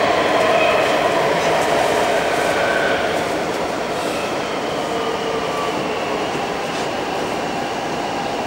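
CNR Changchun DKZ47 metro train heard from inside the car, running through the tunnel with a steady wheel-and-rail rumble. It is slowing for the next station, and the whine of its SATEE Optonix IGBT-VVVF traction inverter falls gently in pitch as the train brakes.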